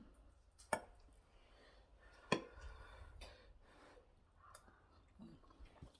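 Quiet eating sounds: two sharp clicks, about three-quarters of a second and two and a quarter seconds in, amid soft chewing and wet mouth noises, with a brief low hum a little after five seconds.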